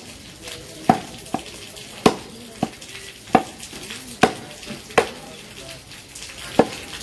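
Butcher's heavy chopper striking beef on a wooden log chopping block: about eight sharp chops, unevenly spaced less than a second apart, with a longer pause before the last, over a steady background hiss.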